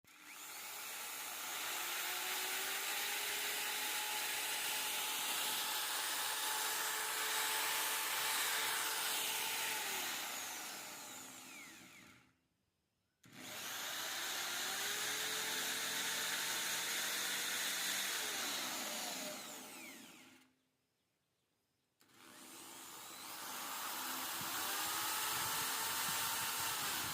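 Electric drill motor run three times. Each time its whine rises in pitch as it spins up, holds steady, then falls as it runs down, with short silent gaps between runs.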